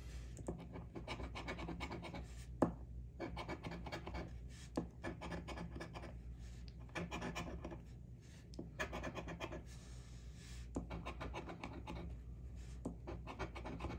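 A coin scraping the coating off a scratch-off lottery ticket: runs of quick rasping strokes broken by short pauses, with one sharp click a little under three seconds in.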